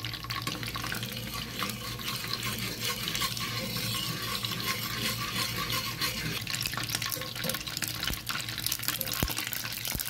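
Butter and a little oil sizzling and bubbling hard in a small saucepan, heated until very hot, with a metal spoon stirring through it. A dense, steady crackle of fine pops.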